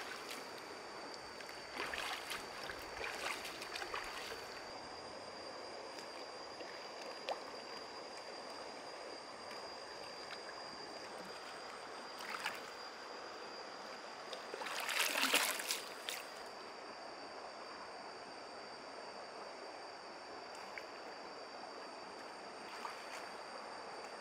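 Steady rush of a flowing forest stream under a constant high insect drone, with a few brief louder noises: one cluster a couple of seconds in and the loudest about two-thirds of the way through.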